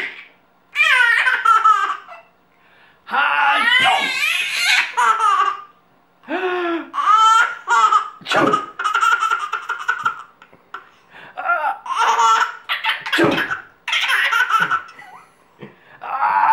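A nine-month-old baby laughing hard at a man's fake sneezes, in a run of belly-laugh bursts with short pauses between them. A couple of short, sharp sneeze sounds fall between the rounds of laughter.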